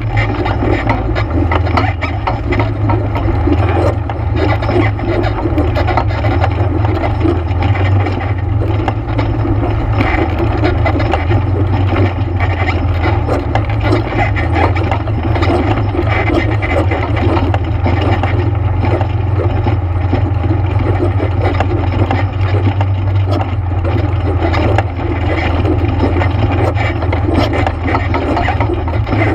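ATV engine running steadily under way, a constant low drone with clatter from the machine over the trail.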